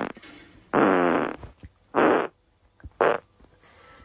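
A run of four loud farts. The first is short, the second, about a second in, is longer with a wavering pitch, and two short ones follow at about two and three seconds.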